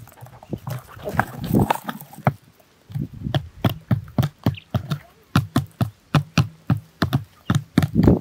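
Quail pecking grain off a board, a string of sharp, irregular taps of beak on board, several a second, with a denser patch of scratching and tapping about a second in.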